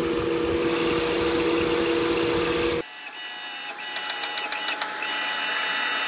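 A small machine motor running with a steady hum, cut off abruptly about three seconds in. A fainter hiss with a few light clicks follows.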